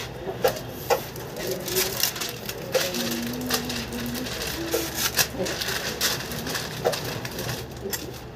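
Busy room background: scattered light clicks and knocks over a steady low hum, with a low held tone lasting about a second around three seconds in.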